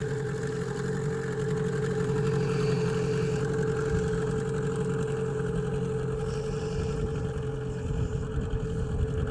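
Golfstream (Parsun) T8 BM outboard, an 8 hp two-cylinder two-stroke, running steadily with the boat under way. The motor is new and in its first minutes of break-in.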